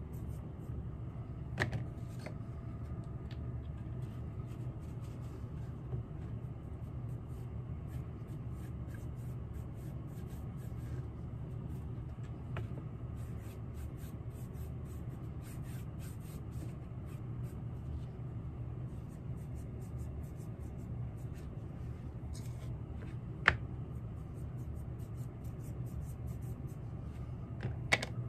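Dauber brushes rubbing stain onto leather sole and heel pieces, a light scratchy scrubbing, over a steady low hum; a few sharp clicks, the loudest near the end, as tools or stain bottles are picked up and set down.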